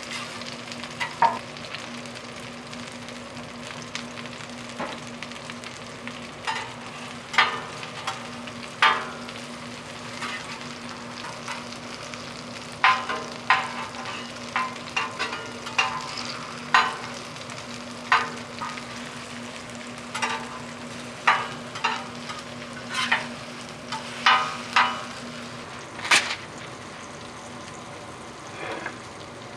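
Jeon frying in oil on a hot griddle, sizzling steadily, with irregular sharp clinks and taps of a metal spatula against the griddle. A faint steady hum runs underneath.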